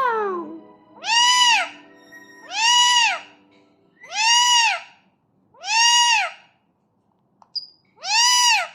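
Alexandrine parakeet imitating a cat's meow, repeating it five times about a second and a half apart. Each call rises and then falls in pitch.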